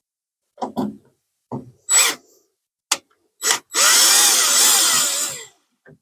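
Power drill-driver working at rusty screws: several short trigger bursts, then a longer run of about a second and a half near the end, its whine wavering as the motor speed changes under load.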